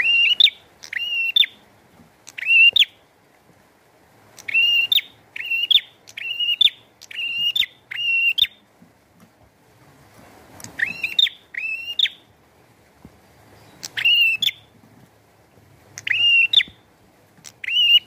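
Caged prenjak singing in full voice: loud, sharp, rising chirp notes, given singly and in quick runs of three to six, with pauses of a second or two between the runs.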